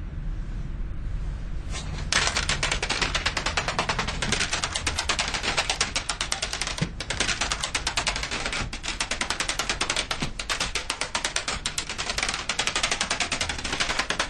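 A long domino chain of plastic CD cases toppling one after another: a fast, unbroken run of sharp clacking clicks that starts about two seconds in and keeps going.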